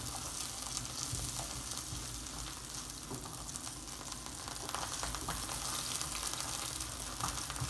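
Frozen mixed vegetables (peas, carrots, green beans and corn) sizzling steadily in hot oil in a nonstick frying pan over a high flame, with a silicone spatula stirring and scraping them now and then.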